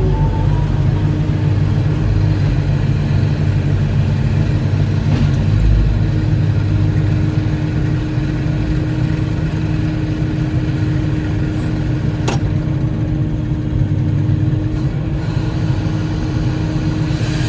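Volvo 140E excavator's diesel engine running steadily with a deep drone, and a single sharp knock about twelve seconds in.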